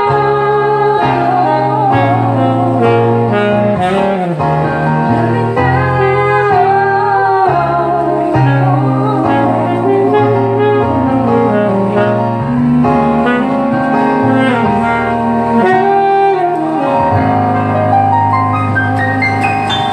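Saxophone playing a melodic solo line over backing music with a steady bass.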